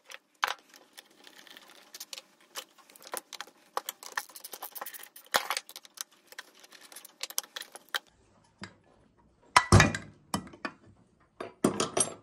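Small irregular metal clicks and clinks of hand tools working the bolts out of a 66/80 cc motorized-bike engine crankcase, with a few louder knocks about two-thirds of the way through as the case halves are knocked apart.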